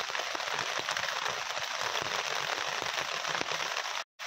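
Wild fern shoots sizzling and crackling as they cook in a pot on a portable gas stove, a steady spitting hiss full of fine pops. It breaks off abruptly near the end.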